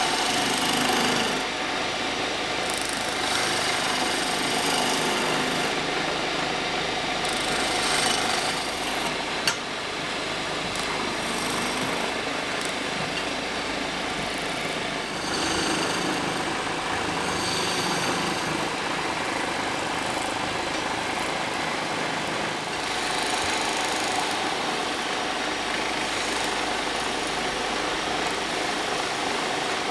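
Wood lathe running, with a hand-held turning chisel cutting into the spinning wooden blank: a steady scraping hiss of the cut over the machine's running. A single sharp click comes about a third of the way through.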